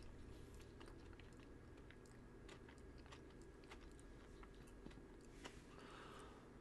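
Faint chewing of a mouthful of soft, thin-skinned tomato: small wet mouth clicks and smacks scattered throughout.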